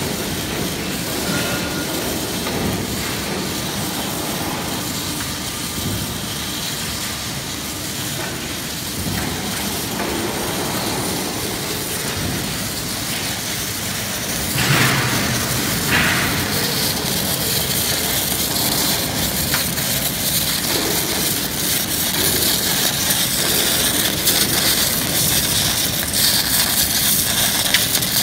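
Steady industrial noise from overlay welding machines laying chromium carbide hardfacing onto steel wear plate, with the hiss of the welding arcs. The hiss grows stronger in the second half. A brief louder burst comes about halfway through.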